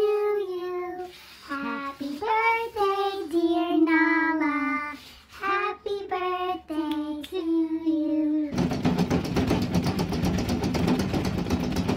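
A voice singing a tune in long notes that slide in pitch, then about eight and a half seconds in a sudden switch to a loud, dense rasping noise.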